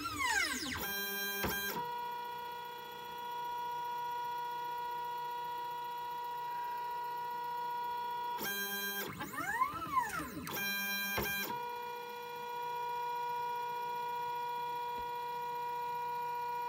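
Lulzbot Mini 3D printer's stepper motors whining as the hot end moves between bed-levelling points during automatic bed levelling. The pitch rises and falls with each move, about a second in and again around nine to eleven seconds in, over a steady high whine between moves.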